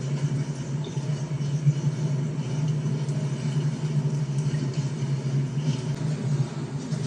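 Steady low rumble of a motor vehicle running, with no distinct events.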